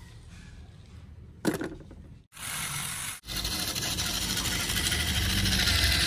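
A single plastic clack about a second and a half in, then a toy RC truck's small electric motor and gears whirring steadily, growing louder.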